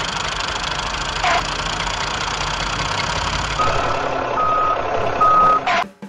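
Vehicle engine sound effect running steadily, with three short reversing beeps in its second half and two brief falling tones; it cuts off suddenly near the end.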